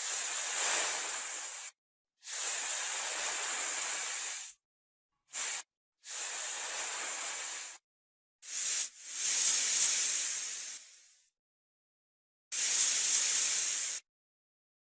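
Snake hissing: seven separate airy hisses, most one to two seconds long and one very short, with dead silence between them; the sixth tails off slowly.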